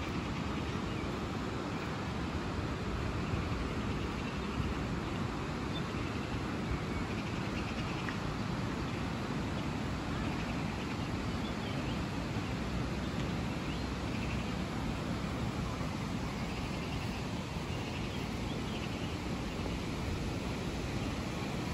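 Steady rushing of the Brandenberger Ache, a fast Alpine mountain river, with a few faint bird chirps above it.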